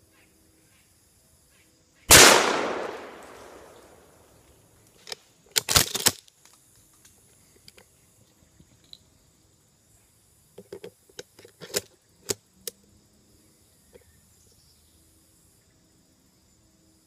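A single gunshot about two seconds in, its report echoing through the trees and dying away over about two seconds. A quick burst of sharp clattering clicks follows around six seconds, then a few scattered lighter clicks.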